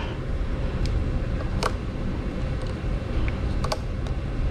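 A handful of sharp clicks from spring-loaded alligator clamps of a battery charger being handled and clipped onto a 12-volt lithium motorcycle battery's terminals, over a steady low hum.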